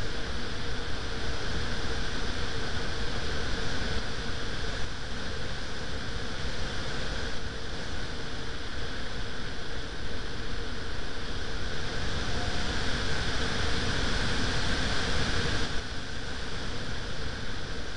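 Steady rushing wind noise on the microphone, with a faint steady hum underneath.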